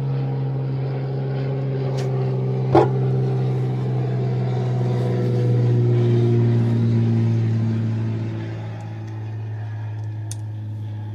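A motor vehicle engine running steadily, its pitch drifting a little and growing louder for a few seconds midway. There is a single sharp metallic click about three seconds in.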